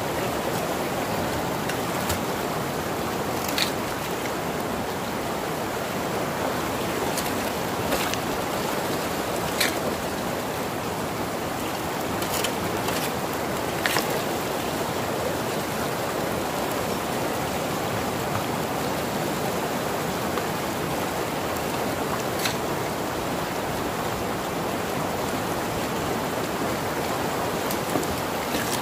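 River water rushing steadily through a gold-prospecting sluice box, with a few scattered sharp clicks of gravel and small stones knocking as they wash down it.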